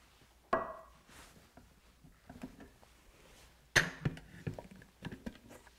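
Clinks and knocks of a drinking glass and a Vitamix blender's plastic jar being handled. There is a sharp clink with a short ring about half a second in. A louder knock comes a little past halfway, followed by several lighter knocks and clicks as the jar is lifted off its base and its lid is taken off.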